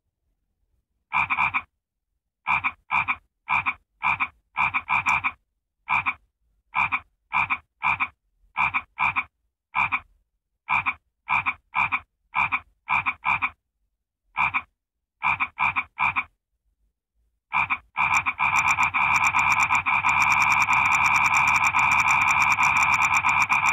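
A frog calling: short, identical croaks repeated in quick, uneven runs, then after a brief pause one continuous rapid trill.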